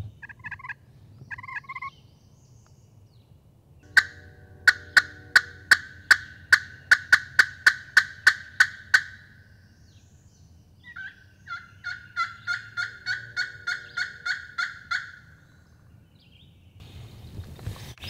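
Crow locator call blown by a turkey hunter in loud, evenly spaced caws: two short ones, then a long run of about fourteen, and after a pause a second run of about ten. It is used to shock a gobbler into answering, and no gobble comes back.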